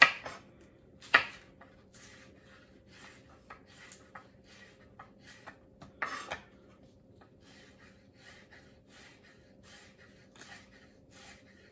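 Chef's knife slicing green onions on a wooden cutting board: a string of light, uneven knocks of the blade on the board, with louder knocks at the start, about a second in, and about six seconds in.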